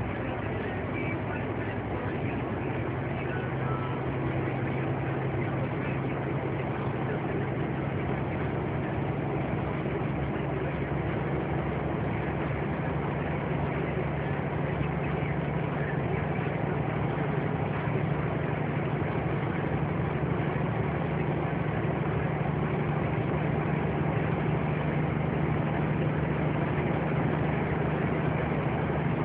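Lorry engine running steadily at road speed, with tyre and road noise, heard from inside the cab. Its low engine note grows a little stronger in the second half.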